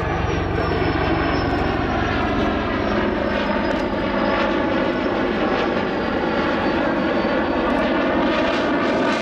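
F-16 fighter jet engine passing at low speed: steady, loud jet noise with a high-pitched whine that wavers slowly in pitch.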